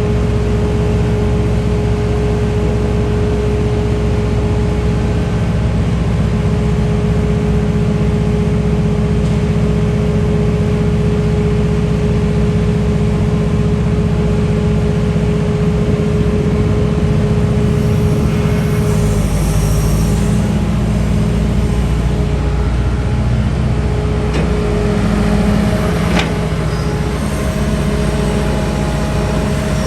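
Liebherr A934C's diesel engine running steadily, with a steady whine over it. About two-thirds of the way in the whine drops out with a short hiss, and there is a single sharp click near the end.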